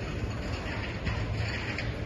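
Steady ambience of a large indoor exhibition hall: a low hum under an even hiss of background noise, a little brighter through the middle.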